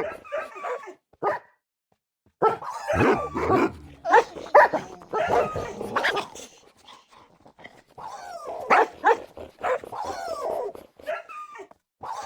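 Dogs barking, yipping and whining in quick succession, with a brief silence about two seconds in.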